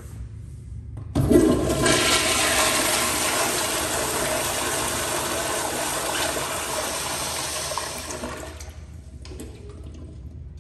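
American Standard Afwall commercial toilet flushed by a lever-operated flushometer valve. A sudden loud rush of water starts about a second in, holds for about seven seconds, then tapers off to a quieter trickle near the end.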